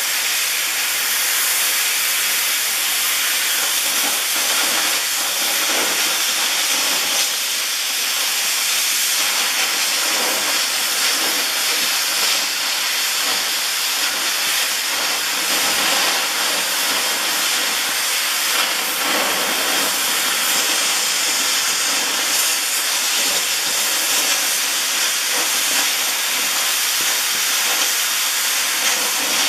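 Robot-guided cutting torch cutting a bevel along the edge of a 50 mm steel plate: a loud, steady hiss with a faint high whistle.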